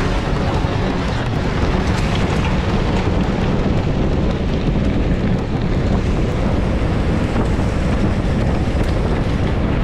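Steady wind noise buffeting the microphone of a camera on a gravel bike riding at speed on a dirt road.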